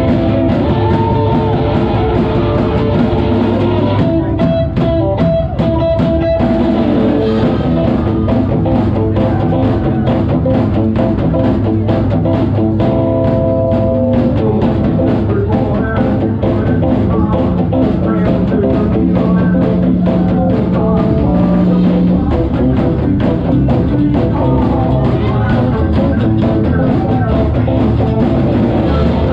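A live rock band plays a psychobilly song on hollow-body electric guitar, upright double bass and drum kit, with the drums keeping a steady beat.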